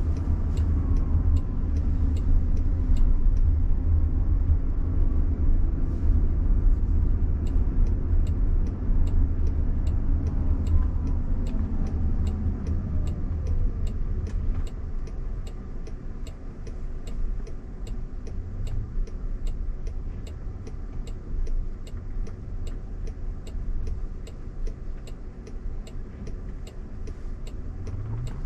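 Road and tyre rumble inside the cabin of a Waymo driverless car as it drives, easing off about halfway through as the car slows. A turn signal ticks steadily throughout, about three clicks a second.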